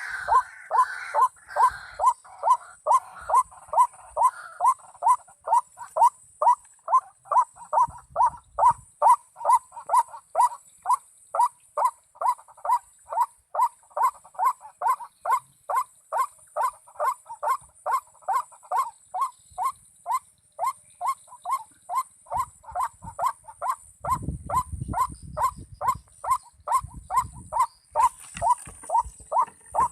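White-breasted waterhen calling: a steady, unbroken series of short harsh notes at about two a second. A low rumble joins the calls for a few seconds near the end.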